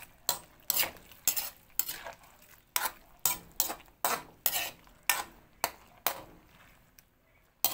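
Spatula scraping and knocking against a stainless steel wok, about two strokes a second, as canned sardines are mashed into cabbage and broth. The strokes pause near the end.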